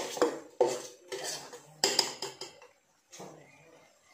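A metal spoon clinking and scraping against a steel bowl while stirring whisked curd, in quick, irregular strokes that stop about two and a half seconds in, with one softer scrape near the end.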